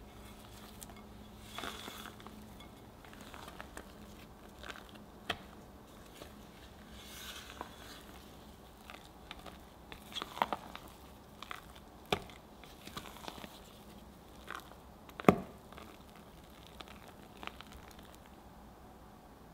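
Spatula stirring and pressing thick buttercream in a glass bowl: soft squishing and scraping, with scattered sharp knocks of the spatula against the glass, the loudest about fifteen seconds in.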